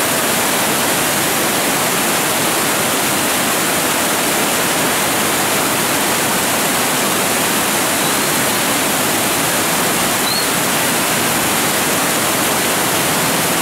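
Muddy floodwater pouring over a lake's long overflow weir and churning in the pool below: a loud, steady rush of water.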